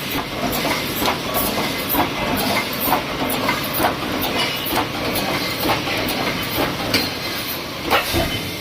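Automatic welded wire mesh welding machine running its cycle: sharp clacks about twice a second over a steady hiss of machine noise.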